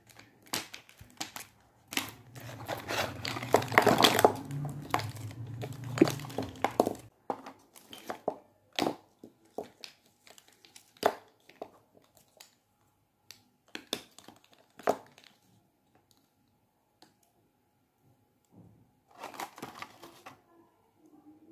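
Cardboard packaging crinkling and rustling as lipsticks are pulled out of their box, then scattered light clicks as the plastic lipstick tubes are handled and set down. A short rustle comes again near the end.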